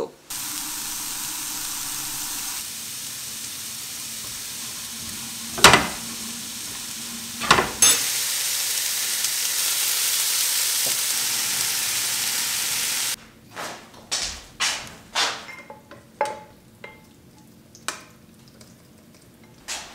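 Chopped vegetables sizzling as they fry in a pan, with two sharp knocks of the spatula against the pan. The sizzling stops about two-thirds of the way through, and a run of knocks and clinks of pan and bowl follows as the food is served.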